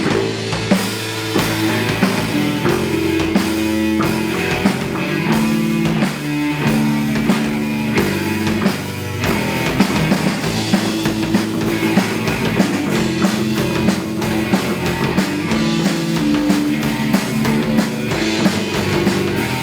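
Live rock band playing an instrumental passage between vocal lines: drum kit driving a steady beat under guitars, loud and continuous.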